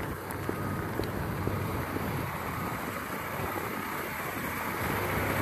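Steady low rumble of an idling semi truck engine, with wind noise on the microphone and faint footsteps on wet concrete.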